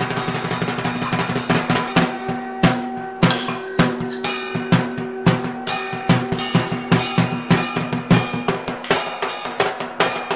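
Background music with a steady drum beat over held instrumental tones; the drum hits come in more strongly about a second and a half in, at roughly two a second.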